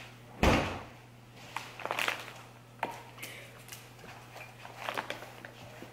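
Quiet handling noises at a kitchen counter: a muffled thump about half a second in, then scattered light knocks and clicks of bowls and utensils, over a steady low hum.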